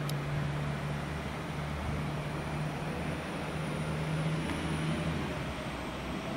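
Diesel multiple unit approaching slowly, its engines a steady low drone, with a short click just at the start.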